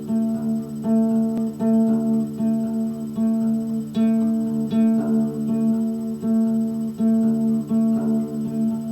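Acoustic guitar playing a steady picked chord pattern, the notes struck again and again in an even rhythm.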